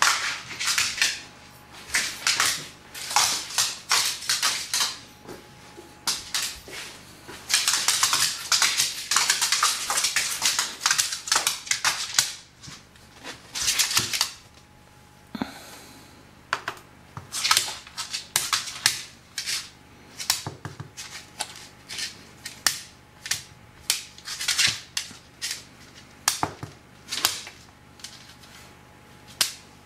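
A dog's claws clicking and tapping on a laminate floor as it prances and turns about, impatient for its food: a dense flurry of clicks from about a quarter of the way in, then scattered taps.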